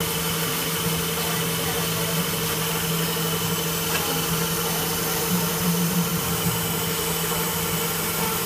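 Tool post grinder with a GMN spindle grinding a W20 holder turning in a lathe: a steady machine hum with a higher whine, over the hiss of the wheel cutting steel.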